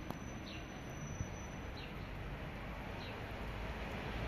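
A small bird calling with a short, high, falling chirp repeated about every second and a quarter, over a steady low outdoor rumble. A single soft thump stands out just over a second in.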